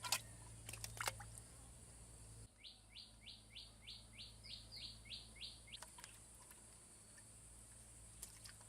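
A bird calls a quick series of about eleven short notes, each sliding down in pitch, a little over three a second, lasting about three seconds. Sharp water drips, loudest in the first second, come before and after the calls.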